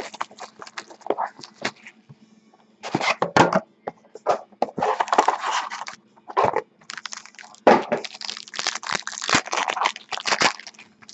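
Crinkling, tearing and crackling of the plastic wrap and cardboard packaging as a sealed box of baseball trading cards is unwrapped and opened, in irregular clusters of sharp crackles.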